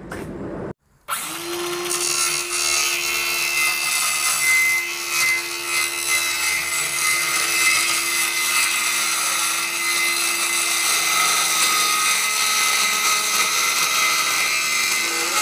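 Ryobi circular saw cutting through a sheet of plywood, starting about a second in and running steadily.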